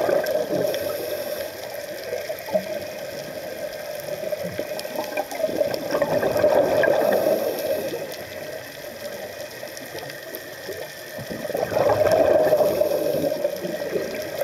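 Scuba diver's regulator heard underwater: exhaled bubbles bubbling in three louder swells about six seconds apart, over a steady watery background.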